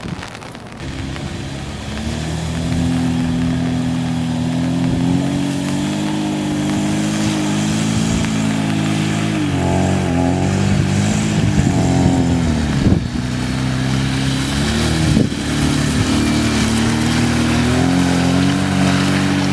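Lada Niva's engine pulling steadily in low revs off-road. Its note dips and rises again a few times as the load changes, with a couple of brief knocks from the body about two-thirds of the way through.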